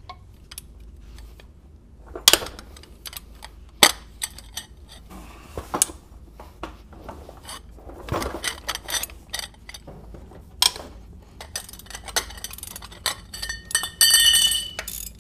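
Metal hand tools and steel bolts clinking and knocking now and then while the transmission's bell housing bolts are taken out. Near the end comes a louder cluster of clinks with a ringing metallic tone.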